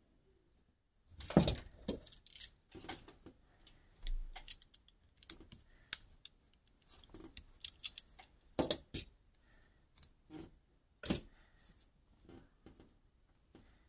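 Irregular clicks, taps and knocks of small plastic and metal parts handled by hand as a TV remote control is taken apart, its case and circuit board knocking together. The sharpest knock comes a little over a second in.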